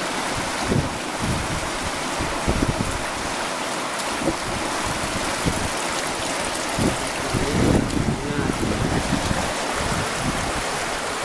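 A river rushing steadily, with wind knocking on the microphone and a faint distant voice about eight seconds in.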